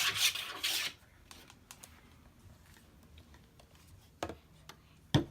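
Bottles and containers of slime supplies being slid and shuffled around on a tabletop: a loud scraping rustle for about the first second, then scattered small clicks and taps, with one sharp knock near the end.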